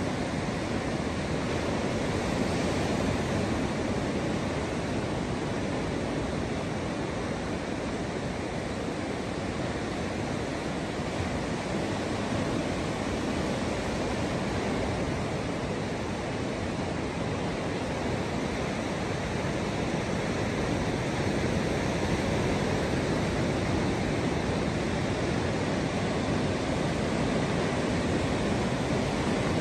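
Ocean surf: small waves breaking and washing up a sandy beach, a steady rush that grows a little louder in the last third.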